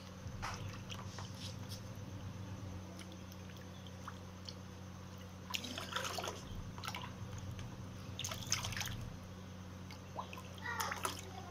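Water splashing and dripping in a plastic tub as a cat dabs its paw at the fish in it: short, scattered splashes, a cluster about halfway through, another a few seconds later and more near the end, over a steady low hum.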